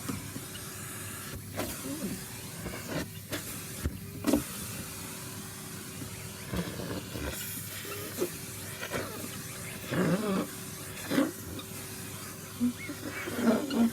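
Vacuum cleaner motor running steadily with a constant hum, with short louder sounds breaking in now and then, the loudest near the end.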